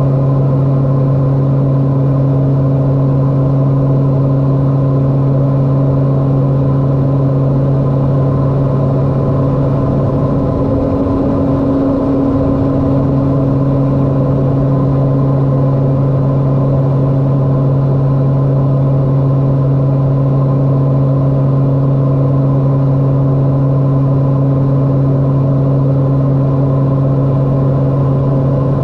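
LET L-410 twin turboprop engines and propellers droning steadily, heard from the cockpit as a loud, even hum over rushing noise. The low hum wavers briefly about eleven seconds in.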